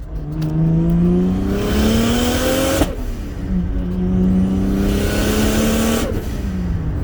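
Turbocharged Lexus IS300's 2JZ-GE straight-six accelerating hard: revs climb, break at a gear change about three seconds in, and climb again. They fall away near the end as the throttle is lifted, with a hiss building toward the top of each pull.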